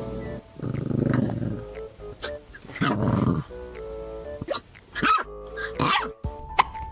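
A dog growls twice, each rough growl about a second long, then hiccups a few times in short sharp jolts.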